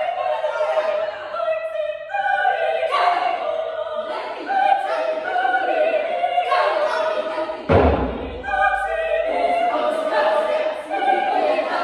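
Women's choir singing unaccompanied in sustained, chant-like lines. About eight seconds in, a single deep stroke on a frame drum booms under the voices and dies away over a second or so.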